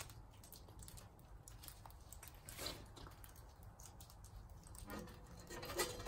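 Faint rustling and light handling clicks, with a brief louder scuff about two and a half seconds in.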